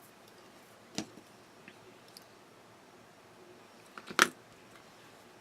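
Paper crafting at a desk: a small click about a second in, a few faint taps, then a short sharp snap or snip just after four seconds, the loudest sound.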